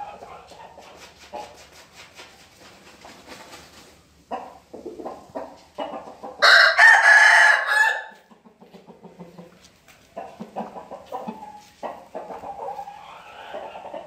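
A rooster crowing once, loudly, about six seconds in, for about two seconds. Softer clucking and short clicks come before and after it.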